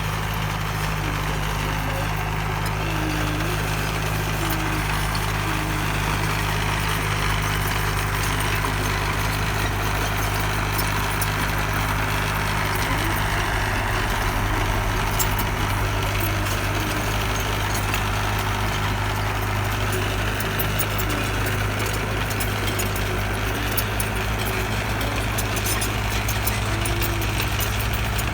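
Bulldozer's diesel engine running steadily, its note shifting slightly about halfway through.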